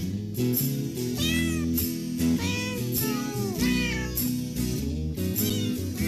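Grey Scottish Fold cat meowing several times, short rising-and-falling meows over background music with a steady beat.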